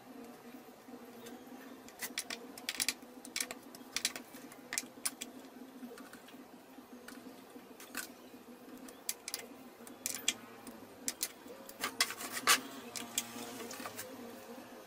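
Irregular light metallic clicks and taps of a hex key and threaded inserts against a plywood board as the inserts are screwed into their holes, over a steady low hum.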